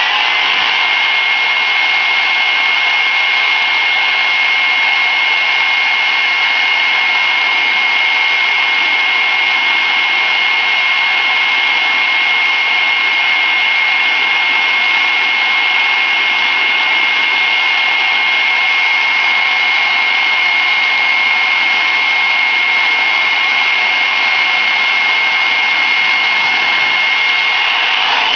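Handheld hair dryer running steadily on high: a constant rush of air with a thin high whine from its motor. The whine rises briefly in pitch as the dryer comes up to speed at the start.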